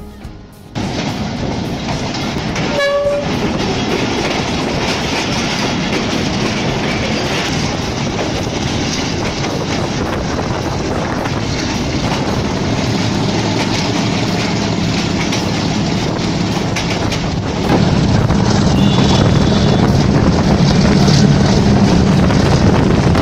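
Passenger train running on the track, its rumble and wheel clatter heard through an open carriage window, with a brief horn toot about three seconds in. The running noise gets louder and deeper about eighteen seconds in.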